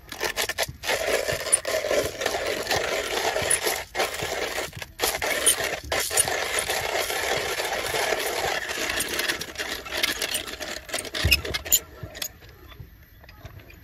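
Vintage Geska box-type hand-crank coffee grinder grinding coffee beans: a steady gritty crunching and rattling, broken by a few brief pauses, that stops near the end.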